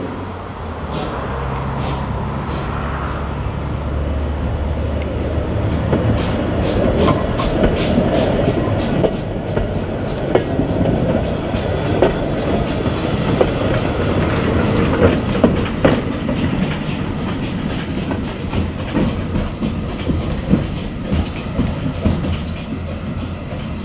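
Narrow-gauge steam locomotive and its goods wagons rolling slowly past, the wheels clicking and clanking over the rail joints over a steady rumble. The knocks grow louder and closer from about a quarter of the way in, peaking around the middle as the locomotive passes, then ease off as it moves away.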